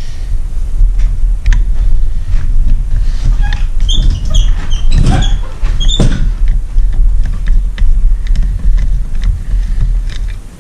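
Screwdriver working at the connecting-rod cap screws on a two-stroke outboard crankshaft: metal clicks and a few short high squeaks about four to six seconds in, over a steady low rumble.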